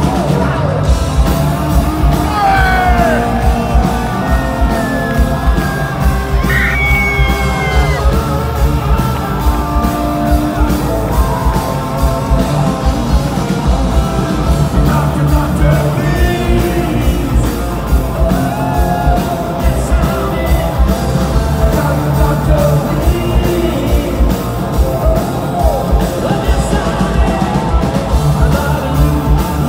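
Live hard rock band playing loud: an electric guitar through Marshall amplifiers, with bent notes in the first several seconds, over drums and bass, with singing.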